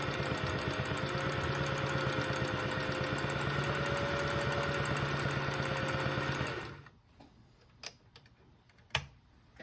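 Singer 626 Touch & Sew sewing machine sewing a forward straight stitch at a steady speed, its motor and freshly greased and oiled gears running smoothly with a fast, even needle rhythm. It stops a little past halfway, followed by a couple of sharp clicks.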